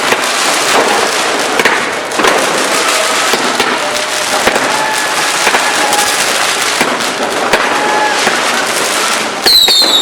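Dense, continuous crackling and popping of many fireworks and firecrackers going off at once, with sharp bangs throughout. Near the end a shrill whistling firework starts, its pitch falling.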